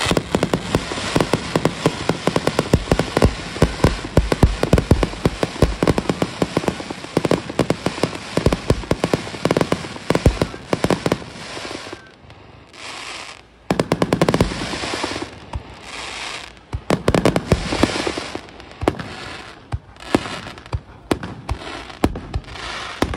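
Fireworks display: a rapid barrage of aerial shells launching and bursting, dense overlapping bangs and crackling, several a second. About halfway through the bangs let up for a second or two, then the barrage resumes.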